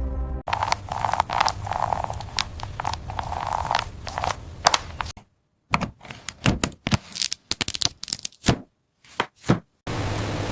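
Scraping and crackling with many sharp clicks, then a run of separate sharp cracks with silent gaps between them.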